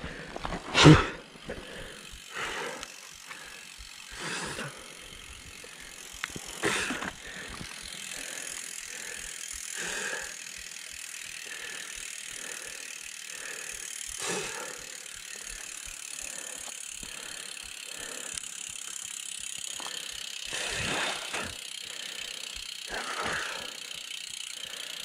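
Mountain bike crash: a heavy thump about a second in as rider and bike hit the ground, then the bike's freehub ratchet ticking as the wheel turns. Scattered rustling and scuffing sounds come from movement on the dirt trail.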